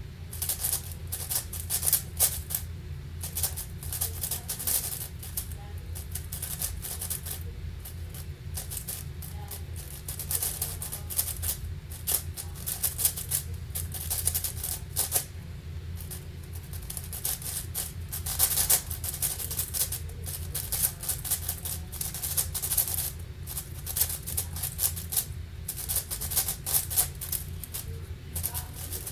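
A 7x7 speedcube (Angstrom AoFu WRM) being turned fast by hand during a speedsolve: a dense, irregular clatter of plastic clicks and rattles as the layers turn, with a brief lull or two.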